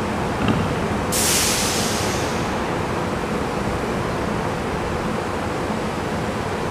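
Steady rushing noise of a distant SEPTA commuter train approaching on electrified track. About a second in, a sudden burst of hiss cuts in and fades away within about a second and a half.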